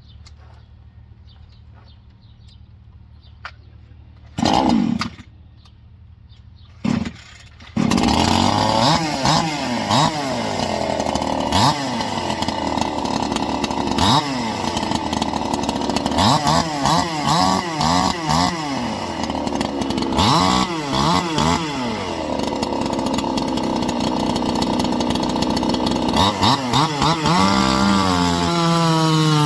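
Two-stroke Chinese 54.5 cc Supmix chainsaw, modded with a deleted base gasket and raised ports. It fires briefly twice, then starts about eight seconds in and runs loud, revved up and down over and over. Near the end the engine pitch sags slowly and climbs again.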